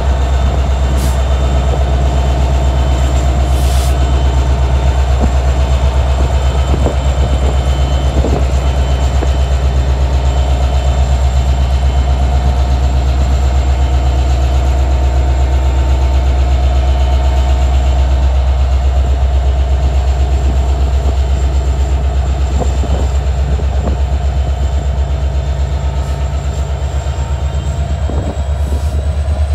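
Union Pacific SD70ACe diesel-electric locomotive, running as a mid-train distributed power unit, passing close by with its EMD 16-cylinder two-stroke engine running: a steady low drone over wheel and rail noise. Near the end it eases slightly as the locomotive moves on and the freight cars follow.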